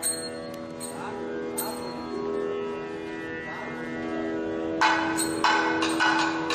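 Nadaswaram playing a Carnatic melody over a steady drone, with sharp strikes at intervals. About two thirds of the way in the nadaswaram comes in much louder.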